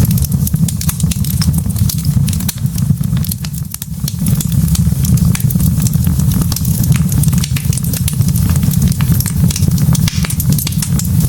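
Wood fire burning in a fireplace: a steady low rush of flames with frequent sharp crackles and pops from the burning logs.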